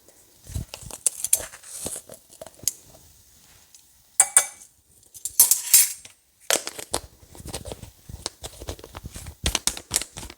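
Kitchen utensils clinking and knocking as seasonings are measured: a metal measuring spoon tapping against a bowl and spice containers being handled, with two brief rustling bursts around the middle.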